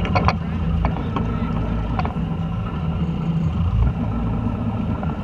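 Steady low drone of the fishing boat's engine running at idle, with a few light clicks and taps in the first two seconds.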